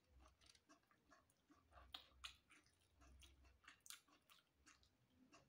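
A person chewing a mouthful of rice and salted fish, faintly, with many small irregular mouth clicks.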